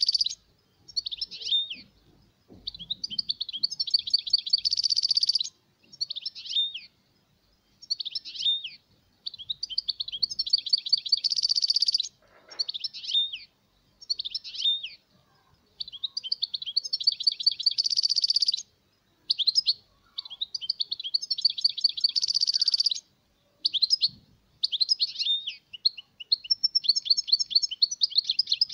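European goldfinch singing: bursts of fast twittering song, each a second or two long with short pauses between, several holding a harsh buzzy trill.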